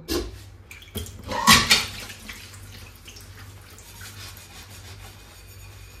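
Dishwashing at a stainless-steel kitchen sink: a few loud knocks and clatters in the first two seconds, then a steady, quieter sound of water and dishes being washed.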